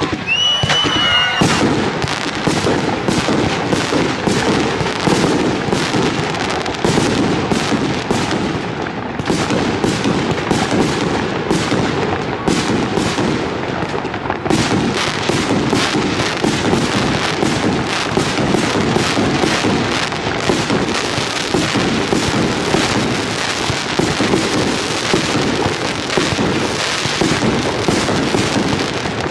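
A 150-shot consumer firework battery (cake) firing in rapid succession: an unbroken stream of launches and bursting bangs with crackle. A brief whistle rises about half a second in.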